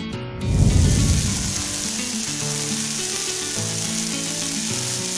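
Sizzling, frying-pan sound effect that starts with a low whoosh about half a second in and then runs on as a steady hiss, over background music.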